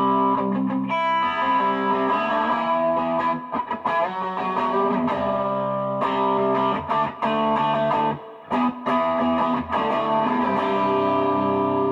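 Electric guitar played through a Fender Blues Junior tube amp: picked notes and chords, a short break about eight and a half seconds in, then a chord left ringing near the end.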